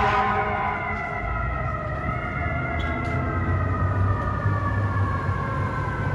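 Fire truck siren sounding, its tone falling slowly and steadily in pitch, with a low vehicle engine rumble underneath.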